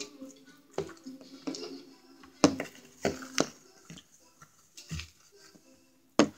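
Several sharp clicks and knocks, about six of them at uneven gaps, the kind made by handling and setting down small objects, over a faint background hum of voices or music.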